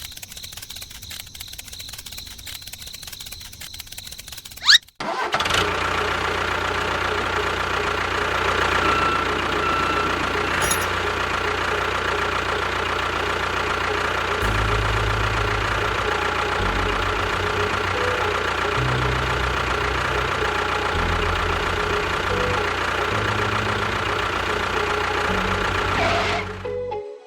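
A vehicle engine comes in abruptly about five seconds in, after a quieter, fainter ticking stretch. It then runs loud and steady, its low tone shifting up and down in steps, and cuts off near the end.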